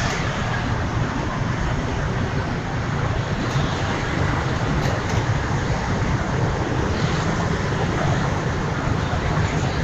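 Steady city street traffic noise of passing motorbikes and cars, a continuous low rumble with no distinct events.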